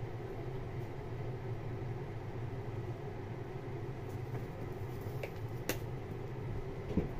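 Steady low mechanical hum, with a few faint clicks near the end.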